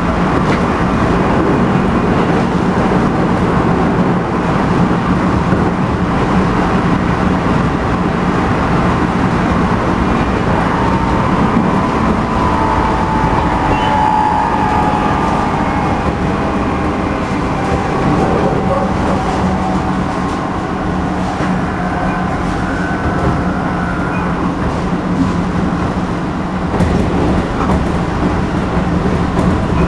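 A JR Central 211 series train heard from inside the motor car (MoHa 210, MT61 traction motors) while running. There is a steady low hum over the rolling rumble, with a surging, wavering drone that the uploader calls a tremendous "uneri" and that marks this car as one with an abnormal noise, cause unknown. Fainter higher tones sink a little in pitch around the middle.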